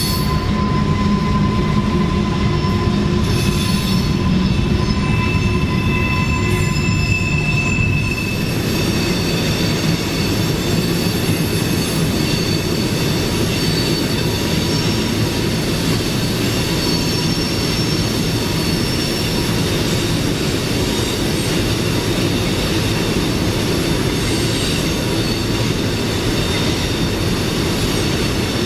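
Freight train cars rolling past close by with a steady rumble and thin, high wheel squeal from the tight curve. About eight seconds in this gives way to the more distant rumble of the long train rounding the curve under a steady hiss of rain.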